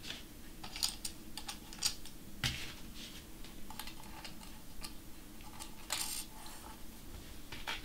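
Small metal precision shims being picked up and set onto the bolts of a CNC plate assembly: a scatter of light, irregular clicks and taps.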